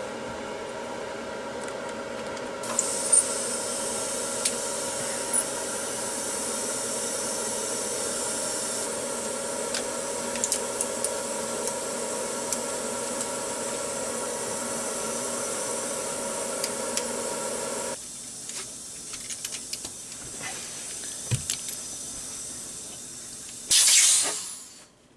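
Compressed air hissing steadily from an air line fed into a spark-plug hole of a Chevy 7.4 L V8, which holds the valves shut while the seals are changed. The hiss sits over a steady hum, grows louder and higher a few seconds in, and mostly stops about 18 seconds in, leaving light ticks. Near the end there is a short loud blast of air that quickly fades away.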